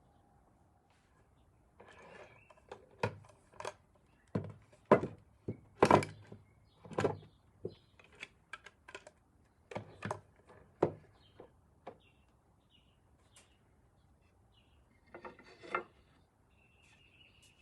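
Irregular knocks and clacks of hard wooden pieces being handled, about twenty sharp strikes in quick uneven groups with a short pause near the middle, and faint bird chirps near the end.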